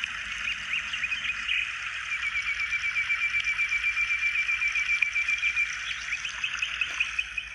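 Birdsong at dawn: a bird sings a fast trill of repeated high notes lasting several seconds, then a shorter run of notes, over a steady background hiss.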